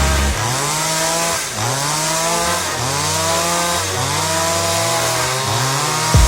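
Two-stroke chainsaw cutting into a big tree trunk, its engine pitch repeatedly rising and sagging about once a second as the chain bites into the wood.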